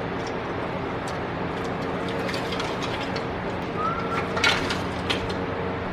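Scattered light clicks and rattles of metal pinball machine parts being handled and moved, with a cluster of sharper clicks about four and a half seconds in, over a steady background hum.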